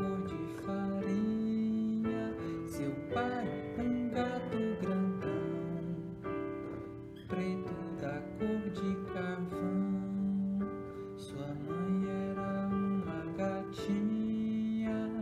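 A man singing a children's story-song over strummed acoustic guitar, in held, sustained notes.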